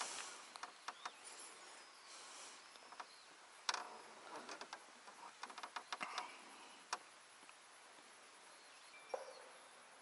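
Quiet outdoor ambience with scattered faint clicks and taps, a few sharper ticks among them.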